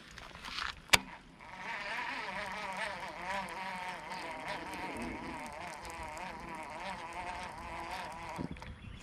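Fishing reel being cranked on a retrieve: a steady whirring whose pitch wavers with the cranking. It starts shortly after a sharp click about a second in and stops near the end.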